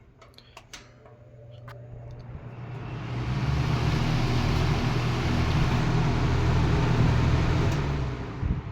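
Lakewood T12 twin 12-inch box fan's two shaded-pole motors starting up: a humming drone and rushing air build steadily over several seconds, then cut off sharply near the end as the fan is switched off.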